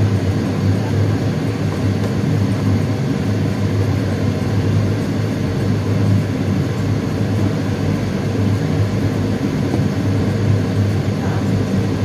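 Kitchen range hood's extractor fan running: a noisy, steady drone with a strong low hum.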